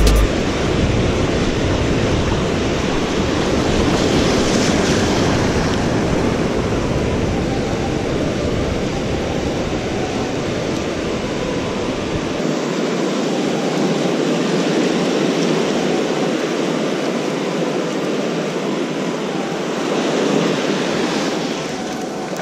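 Surf washing in over the sand as a steady rush, with wind buffeting the microphone; the deep wind rumble drops away about halfway through.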